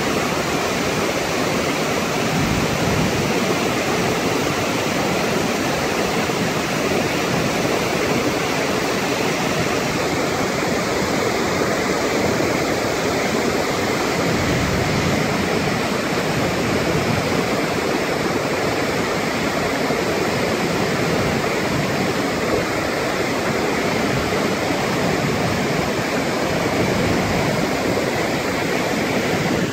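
Flash-flood waterfall pouring down a sandstone canyon wall into churning whitewater: a steady, unbroken rush of water.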